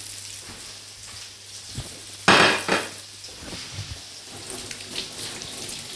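Salmon frying in butter in a pan: a steady sizzle, with a brief louder rush of noise a little over two seconds in.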